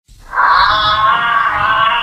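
Giraffe call: one long, steady pitched call starting shortly after the beginning and held without a break.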